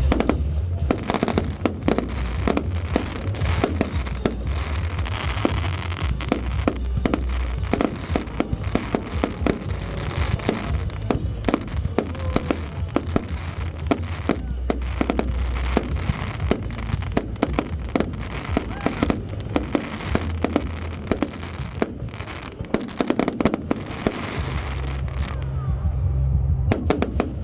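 Fireworks going off in a dense, continuous barrage of sharp bangs and crackles, many reports a second, with music playing underneath.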